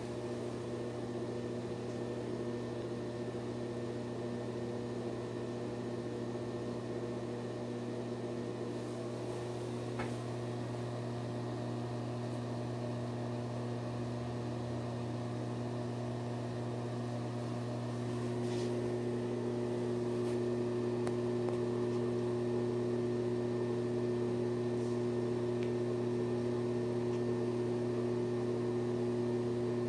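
NuTone ceiling exhaust fan running steadily, a motor hum made of a low drone with a few steady higher tones. It gets a little louder about two-thirds of the way through.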